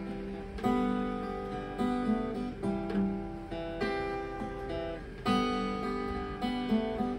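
Steel-string acoustic guitar strummed in a slow, even rhythm, a strong chord stroke roughly every second and a half, the chords ringing on between strokes.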